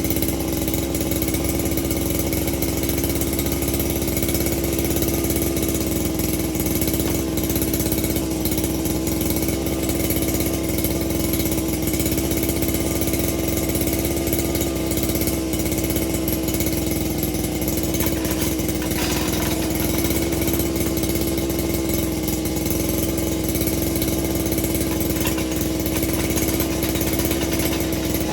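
Small two-stroke engine of a handheld lawn tool, freshly started after sitting unused for a long time, running steadily at idle with an even hum, with a brief change a little past halfway.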